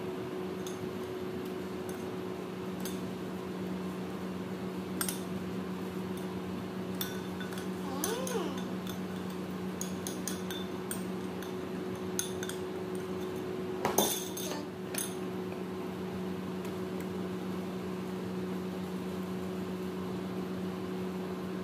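Glass baking dish and kitchen utensils clinking and knocking now and then while salmon fillets are turned and rubbed with marinade, the sharpest clink about 14 seconds in, over a steady electrical hum.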